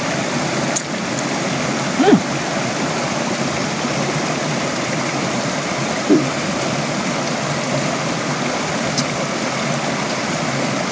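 Shallow rocky stream running over stones: a steady rush of water. Two short sounds stand out briefly, about two and six seconds in.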